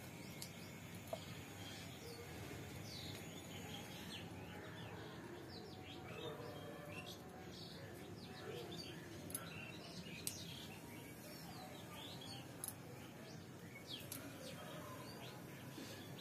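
Small birds chirping: many short, quick high calls scattered throughout, over faint outdoor background noise, with a few sharp clicks.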